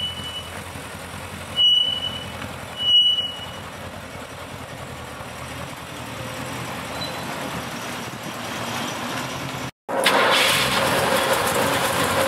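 US-spec Mercedes 280SE 4.5-litre V8 idling, first heard from behind the car at the exhaust, then louder and closer at the open engine bay after a cut near the end. Twice in the first few seconds a short, high squeal sounds over the idle.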